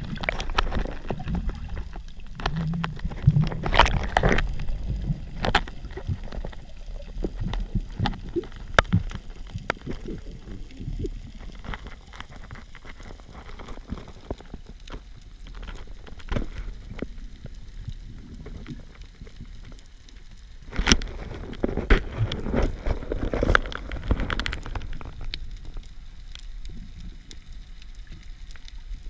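Underwater sound picked up through an action camera's waterproof housing: a muffled low water rumble with scattered clicks, knocks and gurgles, busier about four seconds in and again a little past twenty seconds.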